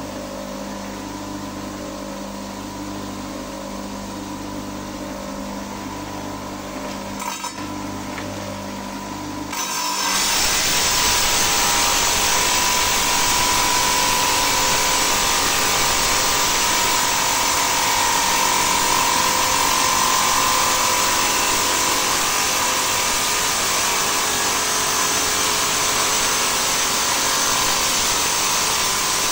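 Stone-cutting saw slicing agate. A steady low motor hum for about ten seconds, then the blade bites into the stone and a loud, steady grinding hiss with a whine takes over for the rest.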